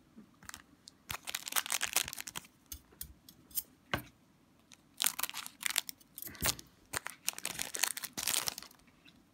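Wrapper of an Upper Deck Portfolio hockey card pack crinkling and tearing as it is handled and opened by hand, in two stretches of rustling with a couple of sharper snaps.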